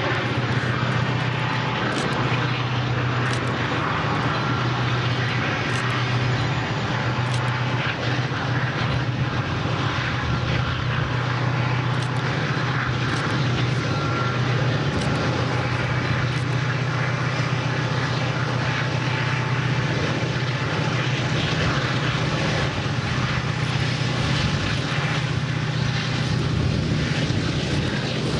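Diesel freight locomotives running at a steady pace, a constant low engine drone over a broad rumble from the train.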